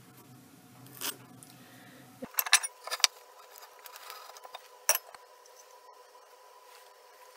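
A metal square handled on a wooden beam during marking out: a few sharp clinks and light scrapes, one about a second in, a quick cluster between two and three seconds, and one more about five seconds in, over a faint steady hum.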